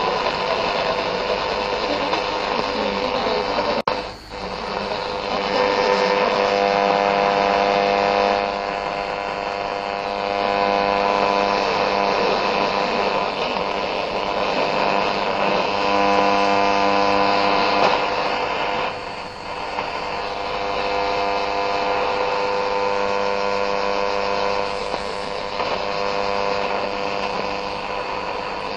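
AM radio tuned between medium-wave stations: static with a steady buzzing hum, cut by a click and a short dropout about four seconds in and dipping again later as the tuning steps.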